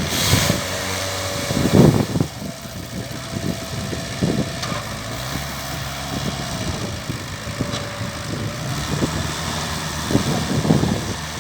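Concrete mixer's engine running steadily, with louder short surges about two seconds in and again near the end.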